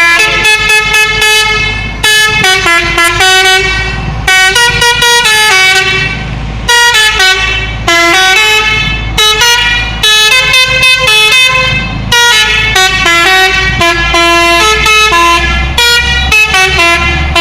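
Telolet horn on an Indonesian bus: a multi-tone musical air horn playing a quick melody of short stepped notes, broken by brief pauses, over the steady hum of the engine.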